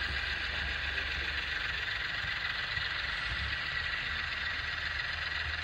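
HO-scale Union Pacific model diesel locomotives running past along the layout track: a steady running noise with a low hum underneath.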